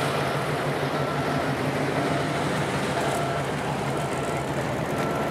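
Cars running on a street: a steady low engine hum under general traffic noise.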